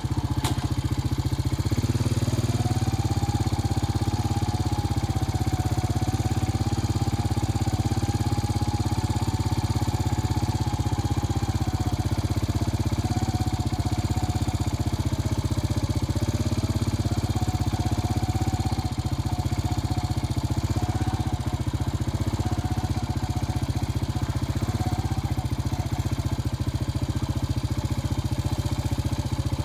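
A motor running steadily, with a low hum and a higher tone that wavers slowly in pitch.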